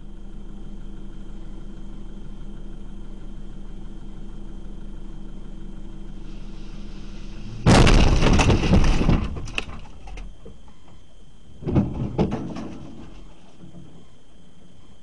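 Low steady hum of the vehicle at a standstill, then about eight seconds in a sudden loud crunch as the vehicle and the back of a minibus taxi collide, with cracking and rattling that dies away over about two seconds. A shorter second knock and rattle comes about four seconds later.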